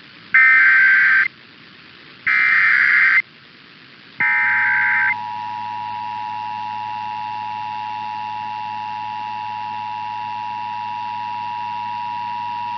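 Emergency Alert System SAME header: three bursts of digital data tones, each about a second long and about a second apart. Then the steady two-tone EAS attention signal starts about four seconds in. Together they open a Kentucky required monthly test.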